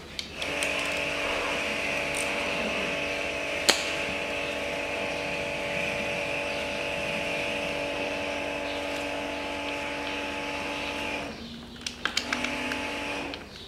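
Handheld electric power tool's motor running at a steady pitch for about ten seconds while working a bolt on the engine's timing end. It stops briefly with a few metallic clicks, then runs again for about a second. There is one sharp click a few seconds in.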